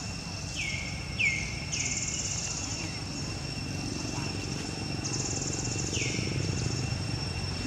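Forest ambience: insects buzzing in repeated rapid-pulsing bursts about a second long over a steady high drone, with several short downward-sliding chirps and a low steady rumble.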